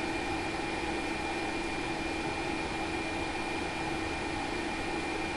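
Steady fan-like machine hum and hiss, with a constant low hum and a thin, steady high whine.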